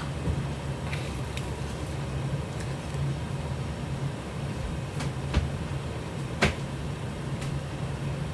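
Steady low hum of an electric hob and its fan under a covered pot of vegetables simmering in coconut milk. A few soft clicks come through, the sharpest about six and a half seconds in.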